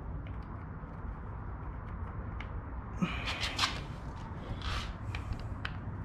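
Oil filler cap being screwed back into the clutch cover of a 2020 Suzuki SV650 by hand: a cluster of rubbing and clicking about three seconds in, and a shorter scrape a little before five seconds, over a low steady rumble.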